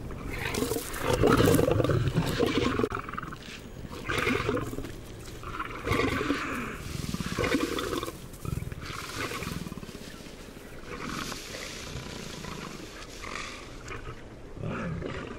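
A lioness and a leopard growling and snarling in repeated rough outbursts. The outbursts are loudest in the first few seconds and grow weaker toward the end.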